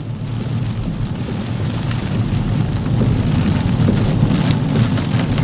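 Steady low rumble of storm wind and road noise inside a moving car, with light rain tapping, growing slowly louder.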